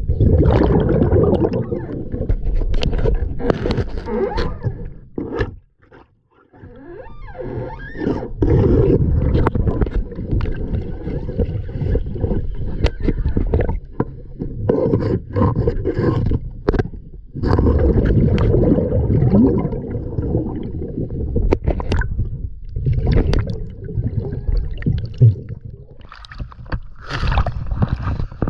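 Muffled underwater rumble and gurgling of water moving around a camera held beneath the surface along a boat hull, broken by scattered knocks and scrapes.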